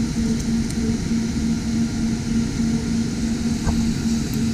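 TIG welding arc running on mild steel, a steady hiss with a low hum, without the buzz of AC aluminium welding.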